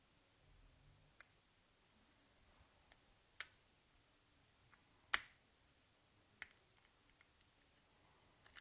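Sharp small clicks and ticks of a Siemens A40 phone's display module and its metal frame as they are handled and pressed onto the circuit board with a plastic spudger. There are about five distinct clicks, the loudest a little past halfway, with softer ticks between.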